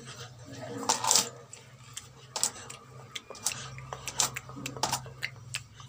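Scattered small clicks and taps over a low steady hum, with a short voice-like sound about a second in.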